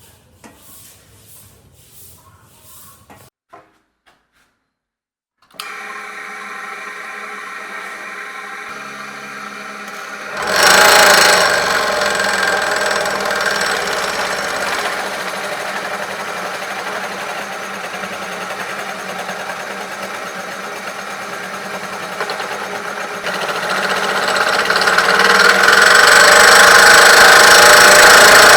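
Restored vintage sawmill machinery running steadily. It starts suddenly about five seconds in after a short silence, gets much louder about ten seconds in, and grows louder again near the end.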